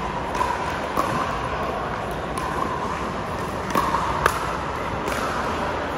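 A pickleball rally: a handful of sharp pops as paddles strike the hard plastic ball, the loudest a little past the middle, over a steady hall noise.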